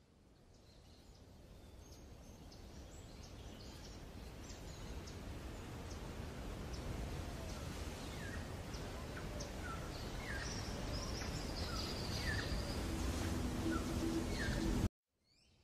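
Birds chirping with many short, high calls over a steady rush of wind-like background noise. The sound fades in slowly, swells, and cuts off suddenly near the end.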